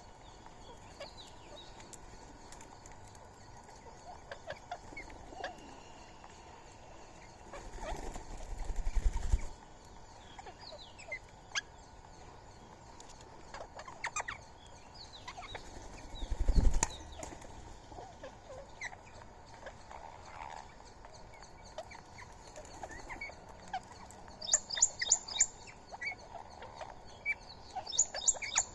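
Small birds at a feeding spot, giving scattered short chirps and calls, with two louder flurries of wing flaps about a third and halfway through. A run of sharp high calls comes near the end.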